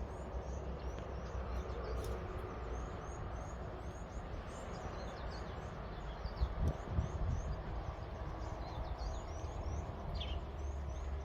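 Outdoor rural ambience: a steady series of short high chirps, about two to three a second, over a low rumble of wind on the microphone, with a couple of dull thumps about six and a half seconds in.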